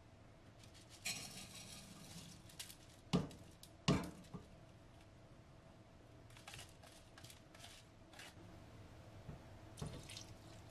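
Washed rice sliding out of a plastic colander into a small pot, with a short hiss as it pours and two sharp knocks of the colander against the pot about three and four seconds in, then soft scattered ticks and scrapes as the last grains are tipped out.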